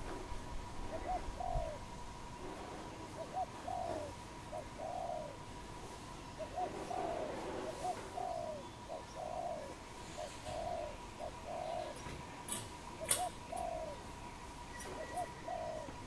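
Spotted dove cooing: soft arched coos in repeated phrases of two to four notes, with short pauses between the phrases.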